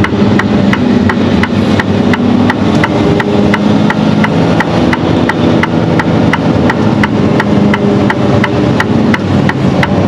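Mercedes-Benz Actros SLT heavy tractor unit's diesel engine running while driving slowly, heard from inside the cab, with a regular rapid ticking of about four clicks a second throughout.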